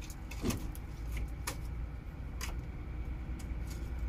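A few light metallic clicks about a second apart as the radiator filler cap of a Mazda T3500 engine is handled after a coolant-level check, over a steady low hum.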